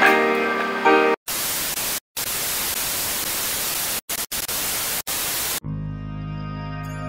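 A second of music, then a hiss of TV static that breaks off in a few short gaps and runs about four seconds. Calm outro music with steady low tones starts near the end.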